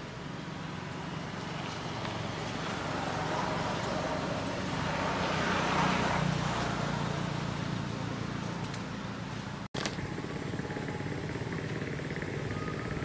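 Steady outdoor background noise with a low hum, swelling to its loudest about six seconds in and easing off, like a motor vehicle passing; the sound drops out for an instant near ten seconds.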